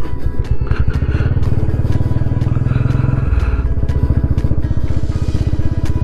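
Royal Enfield Classic's single-cylinder engine running under way in an even, rapid pulse; its low note shifts about three seconds in.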